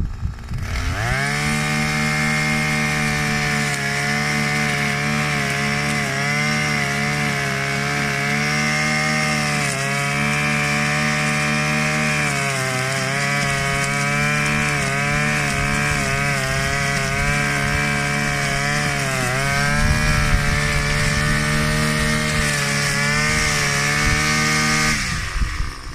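Engine-powered brush cutter running hard while cutting grass. Its pitch dips briefly now and then under load, and it cuts off near the end.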